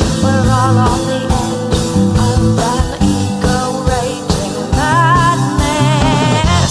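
Music: a song with a steady drum beat, sustained bass and a wavering high melody line, without lyrics in this stretch.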